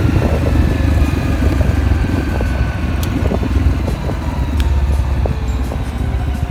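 250 cc single-cylinder dual-sport dirt bike engine running steadily at cruising speed, heard from the bike being ridden, with a heavy low rumble throughout.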